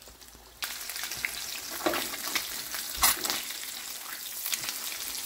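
Eggs frying in bacon grease in a cast-iron skillet, a steady sizzle that starts about half a second in, with a metal spatula scraping and clicking against the pan several times.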